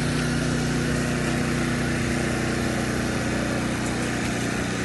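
A small engine running steadily, an even drone that holds one speed throughout.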